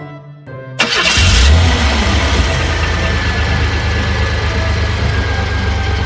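Car engine starting about a second in with a sudden burst, then settling into a steady low idle. Because the cars are diecast models, this is most likely an added engine sound effect.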